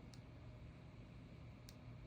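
Near silence: room tone with a steady low hum and two faint, short ticks, one just after the start and one near the end.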